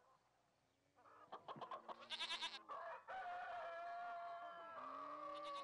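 Chickens: after a near-quiet first second, a short burst of rapid high clucking, then a rooster's long crow held through the second half.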